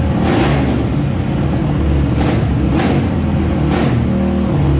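Motorcycle's air-cooled single-cylinder engine running, revved up in short blips about four times.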